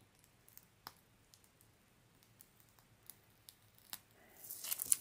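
Faint scattered clicks and taps of small craft materials being handled, then a short crinkling, scraping rustle near the end.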